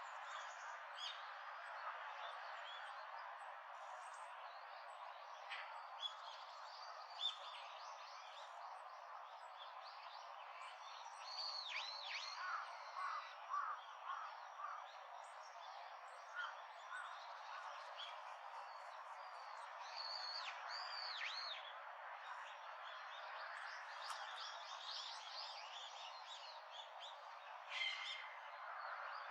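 Wild birds calling outdoors: many short, high chirps and a few quick downward-swooping notes, over a steady low hiss of background noise.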